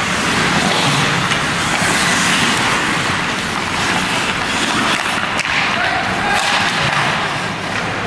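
Ice hockey play: a steady wash of skates scraping the ice with the occasional clack of sticks and puck, and faint voices of players.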